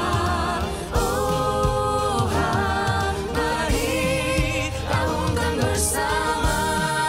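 A song with several voices singing over a backing track with a steady beat.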